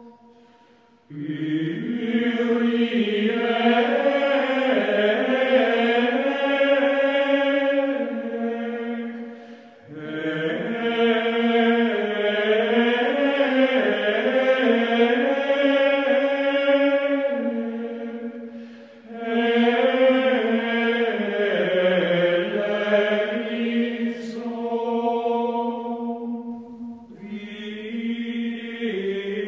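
Slow vocal chant: long held notes that glide slowly in pitch, sung in phrases of about eight seconds with brief breaks between them.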